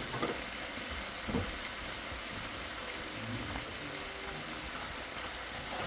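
Thick onion-and-soy sauce sizzling and bubbling in a frying pan, a steady hiss. A light tap about a second and a half in.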